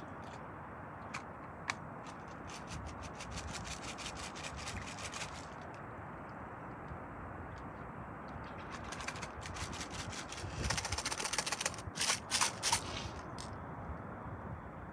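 Fishing reel ticking rapidly in two spells, the second louder, as a hooked trout is reeled in toward the shore.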